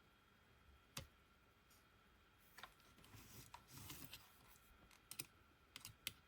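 Faint, sharp clicks, one about a second in and a quick cluster near the end, with soft rustling handling noise in between.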